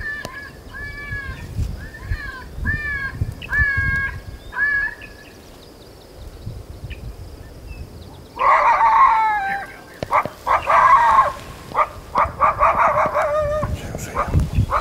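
A short squealing call that rises then levels off, repeated evenly about twice a second for the first five seconds or so. About eight seconds in, a loud falling howl starts a run of coyote barks, yips and howls.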